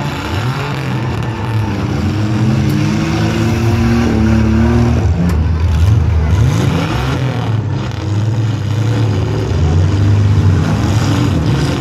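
Several compact demolition derby cars' engines revving and running together, their pitch repeatedly rising and falling as the cars accelerate and back off.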